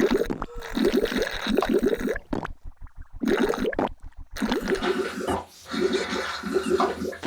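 Cartoon sound effect of noisily drinking juice: rapid bubbling gurgles in short runs, with brief pauses between.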